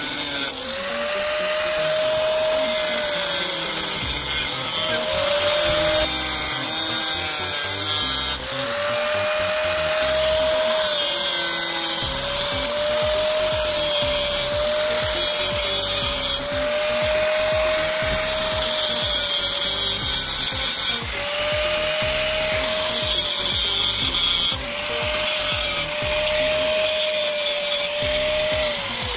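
High-speed rotary power tool grinding, its motor whine rising, holding, then sagging as it bites into the work, over a steady gritty hiss. The sound comes in short cuts of a few seconds each, each ending with the motor note dropping away.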